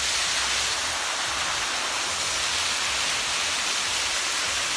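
Waterfall cascading, a steady, even rush of falling water.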